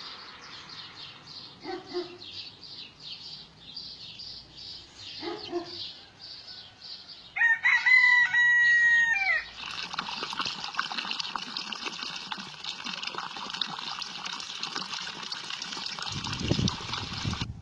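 A rooster crows once, loudly, for about two seconds, some seven seconds in, over a rhythmic high chirping; two short lower calls come before it. About halfway through, the sound gives way to a steady rush of water running over rocks in a small stream, with a low rumble near the end.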